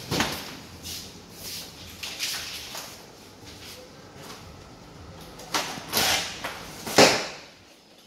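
Plastic packing straps being pulled and slid off a cardboard carton: irregular scraping and ripping noises, with a cluster of sharp rips near the end, the loudest about seven seconds in.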